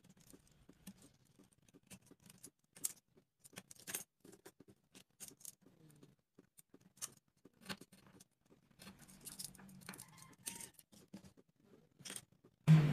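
Utility knife blade cutting and shaving a small piece of popsicle stick on a wooden board: a string of small sharp clicks and scrapes. A louder knock comes near the end.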